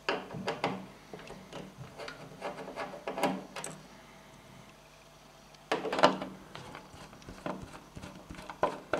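Hand screwdriver turning out small Phillips screws from the connector circuit-board strip of a TV's LED backlight on its metal chassis: irregular clicks and scrapes in a few short bursts, the strongest near the start, about three seconds in and about six seconds in, with quieter gaps between.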